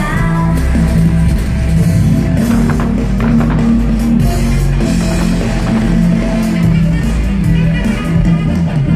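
Loud music with drums.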